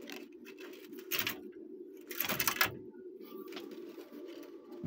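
Handling noise as a small circuit board and its bundle of thin wires are picked up and rustled, with two brief rustling scrapes about one and two seconds in, over a steady low hum.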